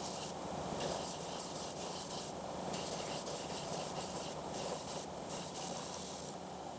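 Oscillating belt/spindle sander running, with the corners of a wooden lid pressed against the sanding belt in short passes. The grinding hiss of wood on abrasive comes and goes with each pass over the steady motor hum, and stops near the end.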